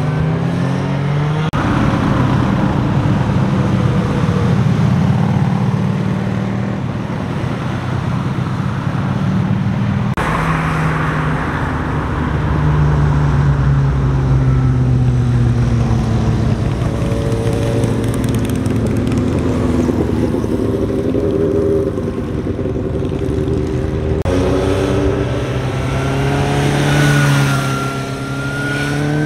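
Motorcycle engines passing one after another through a tight bend, their pitch rising and falling as the riders roll off and accelerate out of the curve. The sound switches abruptly to a new pass about a second and a half in, again around ten seconds, and near the end.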